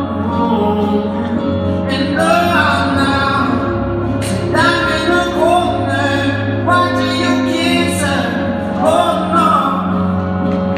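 Recorded show music for a winter guard routine: a song with a sung vocal over steady low held notes, with a sharp hit about four seconds in, heard through a gymnasium's sound system.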